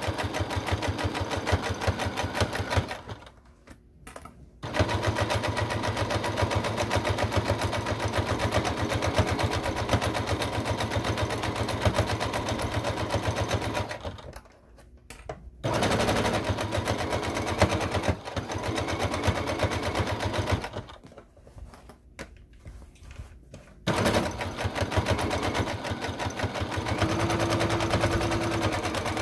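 Electric domestic sewing machine stitching a curved seam through two layers of fabric, the needle clicking in a fast, even rhythm. It stops briefly three times, about 3, 14 and 21 seconds in, then picks up again.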